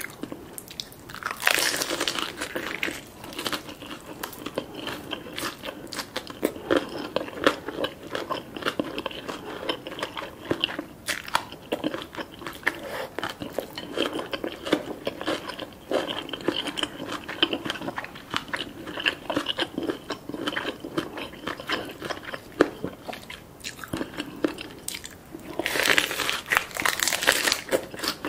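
A person biting and chewing a crisp lettuce wrap of green papaya salad and salmon sashimi: loud crunchy bites about a second and a half in and again near the end, with steady crunching chews between.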